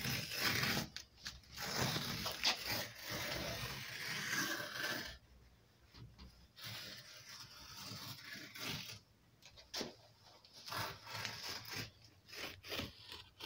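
A hand-pulled adjustable leather lace cutter with a No. 22 scalpel blade slicing a 3 mm lace from a stiff, nearly raw cowhide strip, making a scraping sound. It runs steadily for about five seconds, then comes in shorter, fainter strokes.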